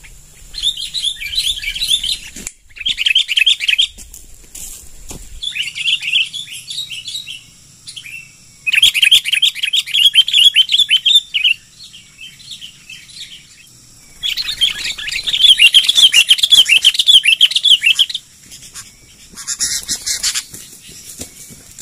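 Sooty-headed bulbuls giving harsh, rapid chattering calls in repeated bouts of one to four seconds, the loudest bouts about nine and fifteen seconds in. These are the agitated, aggressive calls of kutilang squabbling at a lure.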